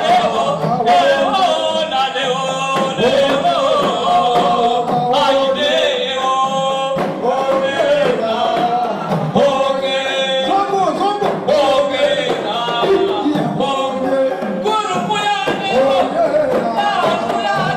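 A group of voices, men's prominent, singing together without a break: a Comorian ouemani (wemani) wedding song.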